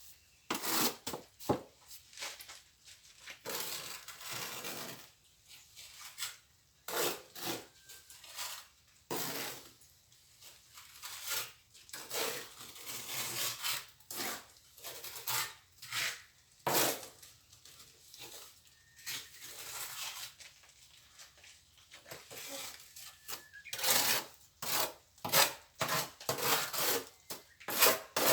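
Plastering trowel scraping and spreading mortar over the wall in repeated uneven strokes, with an occasional sharp tap.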